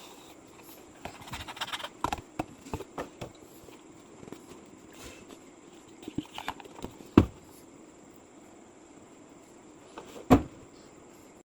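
Packaging being handled during an unboxing: a run of light clicks and rustling, then two sharp knocks, the loudest sounds, about seven and ten seconds in.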